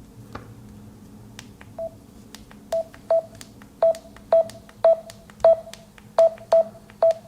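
Samsung Galaxy phone beeping about ten times at irregular intervals, each short beep at the same pitch with a sharp click, over a faint low hum. The beeps are in the manner of key or button feedback tones.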